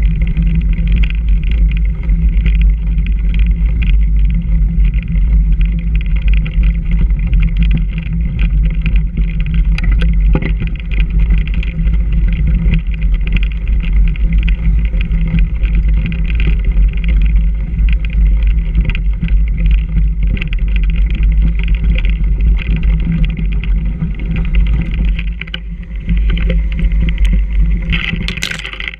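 Mountain bike riding over a rough dirt trail: a loud, steady rumble of wind on the microphone and trail vibration, with frequent small knocks and rattles from bumps.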